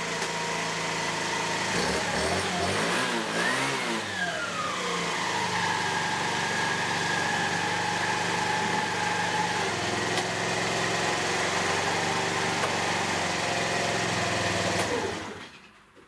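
A 49cc four-stroke moped scooter engine running after being cured of a no-start with fresh fuel, a clean plug and a cleaned carburettor. It revs up once and drops back to a steady idle, then stops near the end.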